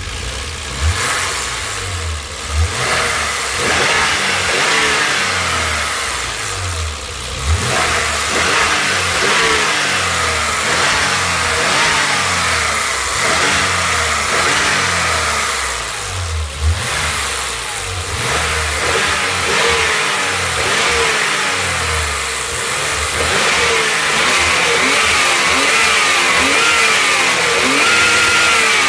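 BMW M20B20 inline-six engine, freshly rebuilt with a new camshaft, running with its speed rising and falling again and again, with a few sharp thumps in the first half.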